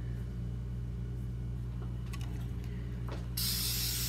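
Lange aerosol hairspray can sprayed in one short hiss of just under a second near the end, after a few faint clicks, over a steady low hum.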